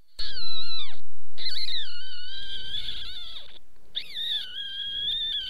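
A pet animal giving three long, high-pitched cries, each drawn out for one to three seconds and bending in pitch, the first short and falling off, the last held longest.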